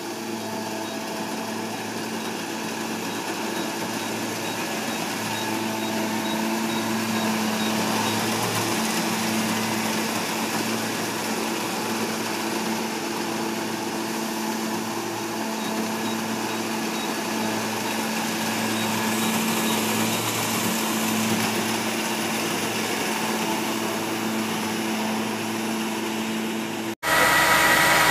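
Kubota DC-70G combine harvester running steadily with its diesel engine hum and machinery noise while harvesting rice, slowly growing a little louder. About a second before the end the sound drops out briefly and comes back louder and closer, with a higher whine.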